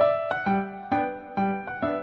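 Background music: a gentle piano or electric-piano tune with notes struck about twice a second.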